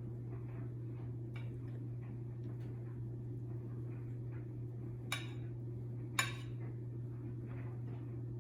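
Butter knife spreading icing on a cookie: faint light scrapes and ticks, with two sharper clicks of the knife against the cookie or plate about five and six seconds in. A steady low electrical hum sits underneath.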